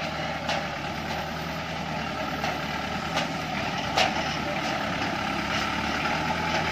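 A light truck's engine running steadily at idle, with a few sharp clicks over it, the loudest about four seconds in.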